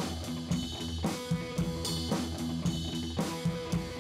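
Music with a steady drum-kit beat, about two hits a second, over held notes.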